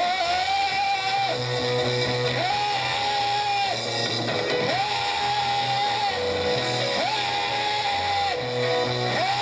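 Slow worship music with guitar and bass: a lead line alternates between a higher and a lower long held note every second or two, over a steady bass.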